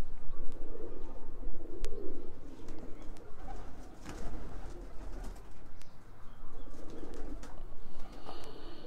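Domestic pigeons cooing, a low murmuring coo coming and going, with a few light clicks.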